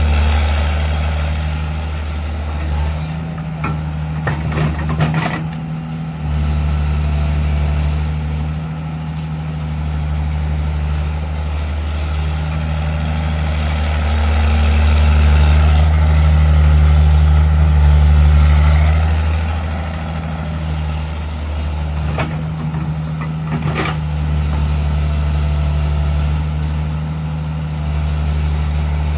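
Heavy construction machinery's diesel engine running steadily, swelling and easing as it works under load. There are a few sharp knocks about four seconds in and two more near the end.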